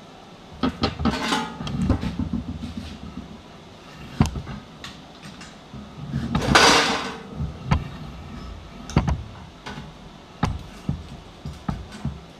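Irregular metal knocks and clanks from steel plate and welding gear being handled, with one louder noisy scrape or hiss lasting about a second just past the middle.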